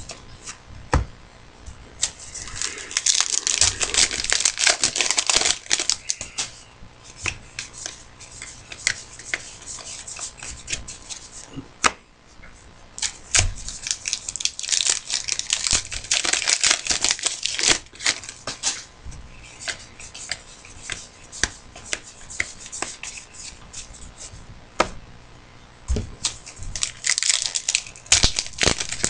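Foil trading-card pack wrappers being torn open and crinkled, with cards slid and flicked through the hands in quick clicks and rustles; three busier spells of crackling, the heaviest a few seconds in.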